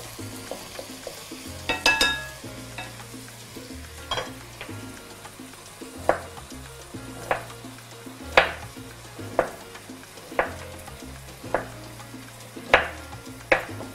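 Sausage and guanciale sizzling in a frying pan, stirred with a wooden spoon, with a metallic clatter about two seconds in. Then a knife slicing red onion on a wooden cutting board, one cut about every second.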